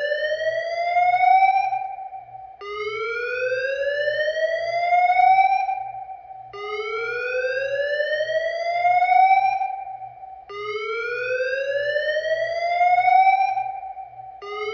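Fire alarm evacuation speaker sounding the slow whoop tone: a rising whoop, one every four seconds, each climbing for about three seconds and then holding briefly at the top before the next begins.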